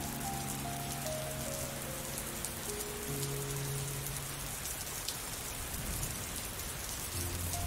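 Steady rain falling on leaves and flowers, under soft music of slow held notes: a falling melody over low sustained notes, which thins out in the middle and comes back near the end.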